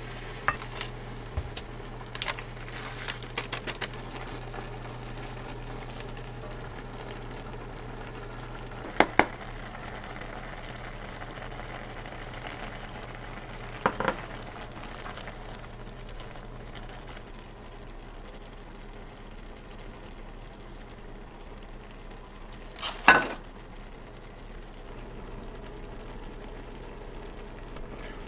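Food frying in a pan with a steady sizzle over a low hum. Utensils click and knock against the cookware now and then, with a few quick clicks early, two sharp knocks twice in the middle, and one louder clack later on.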